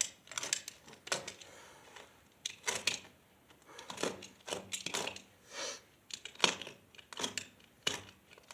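Irregular metallic clicks and clinks of fastening hardware being handled and worked, in short clusters, as concrete wedge anchors with their nuts and washers are fitted to pew angle brackets.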